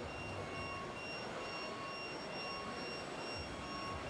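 Hydraulic pump whine of 1:14-scale RC excavators, a thin high whine that switches on and off in short stretches as the machines move, over a steady hiss.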